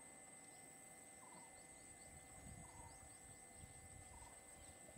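Faint wild ambience: a steady high-pitched insect drone, a short buzzy call repeating about every second and a half, and scattered faint bird chirps.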